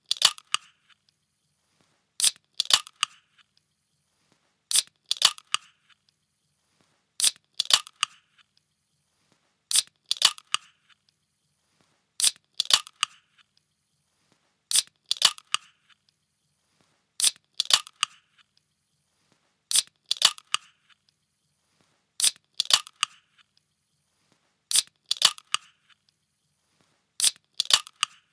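A can being opened, the same sound repeated about every two and a half seconds: each time a sharp click followed by a short burst of hiss, with quiet in between.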